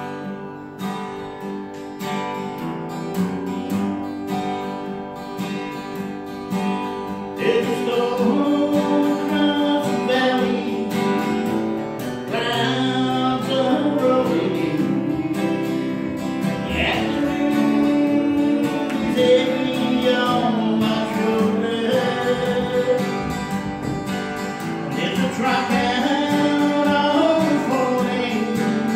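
Acoustic guitar strummed alone at first, then a man starts singing over it about seven seconds in, and the song goes on to the end.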